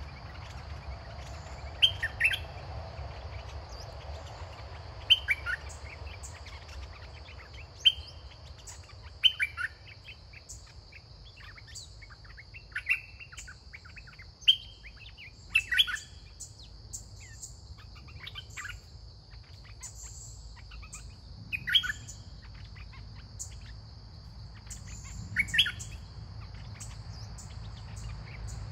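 Songbirds calling at a caged decoy bird: loud short phrases that fall in pitch come every couple of seconds, mixed with many quick high chirps. A steady high hum runs underneath.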